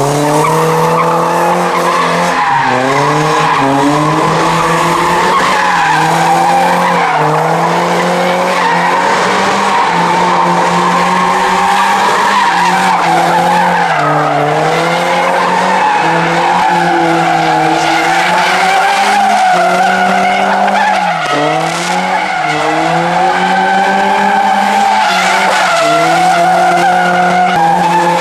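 A car drifting in circles with its tyres squealing without a break. Its engine is held at high revs, climbing and dipping back every couple of seconds as the driver works the throttle.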